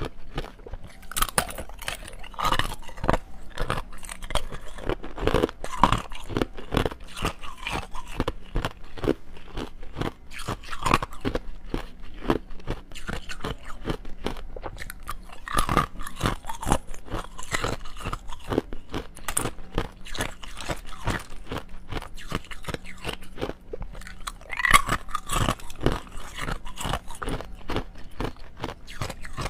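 Clear ice cubes being bitten and chewed close to a clip-on microphone: a dense, irregular run of crunches and cracks that goes on without a break.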